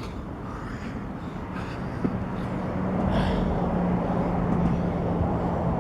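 A motor vehicle's engine hum over a steady low outdoor rumble, coming in about two seconds in and growing louder.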